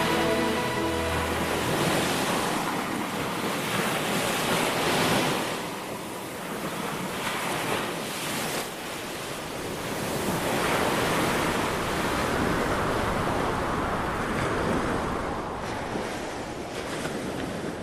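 Ocean surf breaking on a beach, a steady rush that swells and falls away in slow surges.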